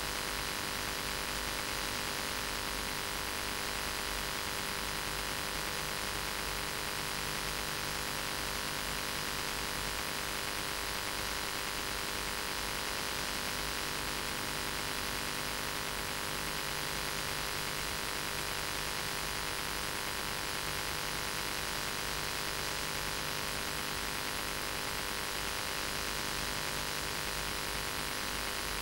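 Steady electrical hum with a buzzy overtone and an even hiss. It does not change, and no voice or other event is heard.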